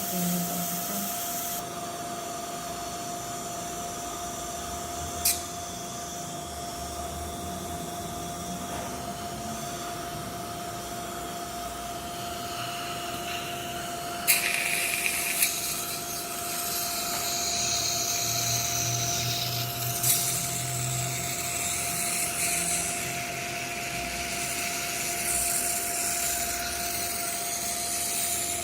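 Dental drill running with the hiss of suction, growing busier with high whining from about halfway through, and a few sharp clicks.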